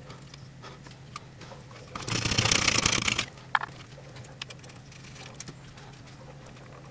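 Handling noise from fingers working a thin hookup wire on a receiver's circuit board: a dense crackling rustle about two seconds in that lasts about a second, then a sharp click, with a few small ticks over a steady low hum.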